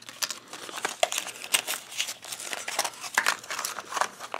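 Thin plastic wrapping and a foil blind bag crinkling and crackling in irregular bursts as a small toy figure is unwrapped by hand.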